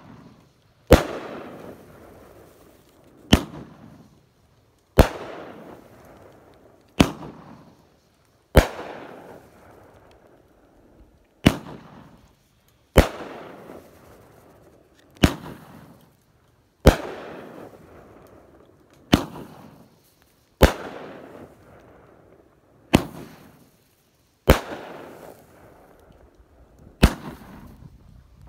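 Neon Overload consumer firework cake firing single shells one after another, about fourteen sharp bangs spaced roughly every two seconds, each trailing off in a fading crackle and echo.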